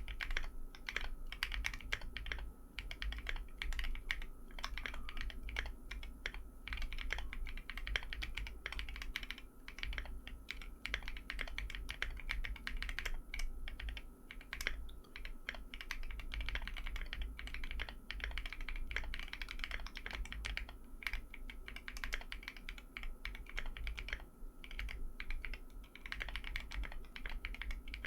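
Typing on a mechanical keyboard with lubed Tecsee Coral tactile switches on an FR4 plate, fitted with MT3 double-shot ABS keycaps: a steady run of keystrokes with brief pauses.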